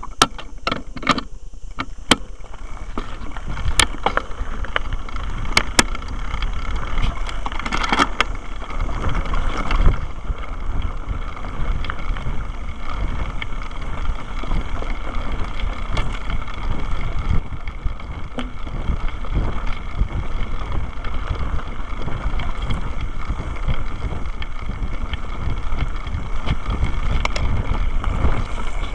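Mountain bike rolling down a rough dirt trail: a steady rumble of tyres and wind on the microphone, with sharp knocks and rattles from the bike and camera mount over bumps, most of them in the first several seconds.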